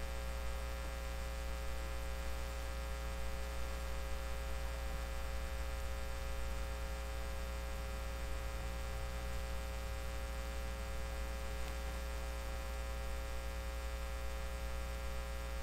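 A steady low hum with a stack of fainter steady overtones above it, unchanging in pitch and level.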